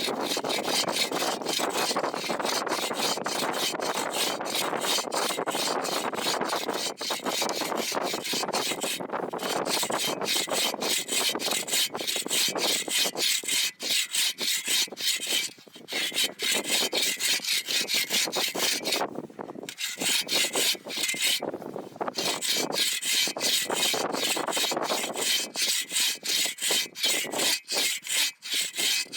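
Hand saw cutting through wood in quick, even back-and-forth strokes, pausing briefly a few times.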